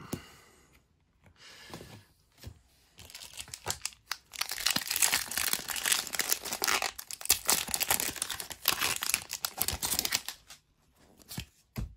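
Foil wrapper of a Pokémon TCG Chilling Reign booster pack being torn open and crinkled by hand: a dense crackling and tearing that starts about three seconds in and stops shortly before the end.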